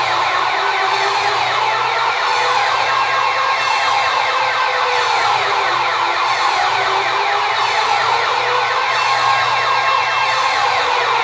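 Loud electronic wake-up alarm sounding continuously. A fast, repeating siren-like warble is layered over a slower wail that rises and falls every few seconds.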